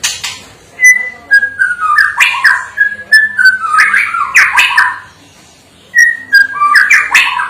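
White-rumped shama (murai batu) singing in full song: two loud phrases of whistled notes stepping down in pitch, mixed with sharp high chips and clicks, the second phrase starting about six seconds in after a short pause.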